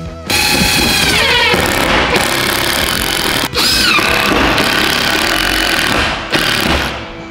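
Makita cordless impact driver driving screws into wood, its hammering clatter in two long runs with a short break about three and a half seconds in, over background music.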